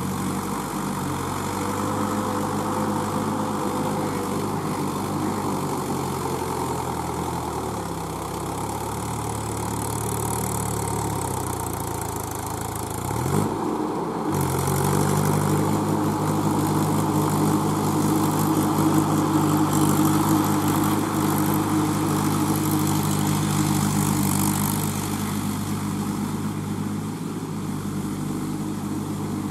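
Diesel tractor engine running steadily under load as the cage-wheeled tractor churns through flooded paddy mud, with a wash of water and mud splashing. About halfway the sound breaks off briefly, then a louder steady engine note comes in.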